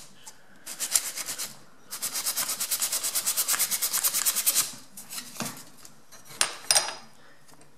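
Sandpaper rubbed rapidly back and forth across the angled end of a balsa wood stick, sanding it flat: a short run of strokes about a second in, then a longer steady run. A few light clicks near the end.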